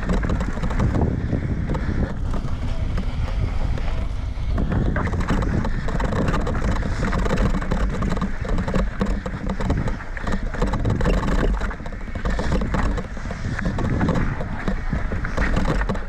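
Mountain bike descending a rocky dirt trail: tyres rumbling over dirt and rock and the bike rattling, under heavy wind buffeting on the action-camera microphone.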